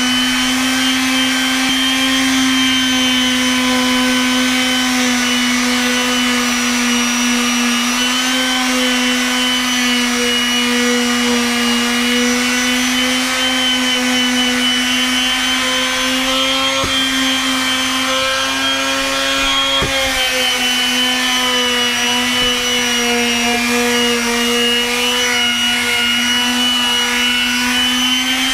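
Makita random-orbit palm sander running steadily while sanding wooden deck boards, its motor hum wavering a little in pitch.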